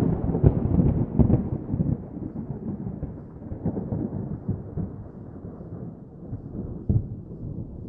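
A deep, thunder-like rumble that starts suddenly and slowly dies away, swelling briefly again near the end.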